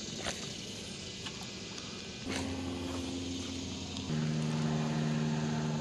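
An engine running steadily, coming in about two seconds in and shifting up to a higher, louder pitch about four seconds in, with a few faint clicks before it.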